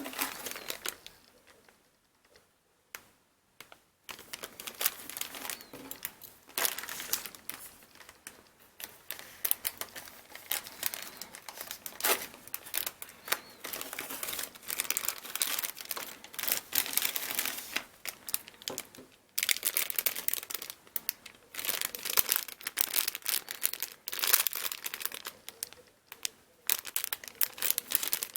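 Packaging crinkling and rustling in bursts as it is handled and opened during an unboxing. The crinkling starts about four seconds in after a short quiet spell and pauses briefly twice.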